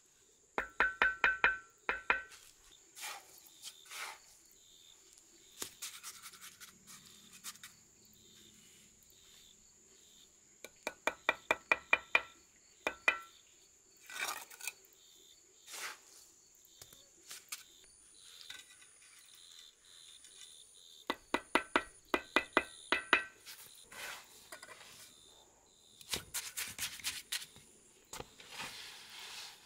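Bricklaying with a steel trowel: quick runs of sharp taps, each with a short metallic ring, as bricks are knocked down into wet cement mortar, three runs in all. Between them come scrapes of the trowel spreading and cutting off mortar.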